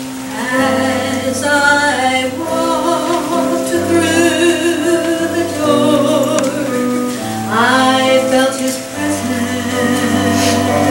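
A woman singing a slow gospel solo, with wide vibrato on held notes, over a sustained instrumental accompaniment. The voice comes in about half a second in.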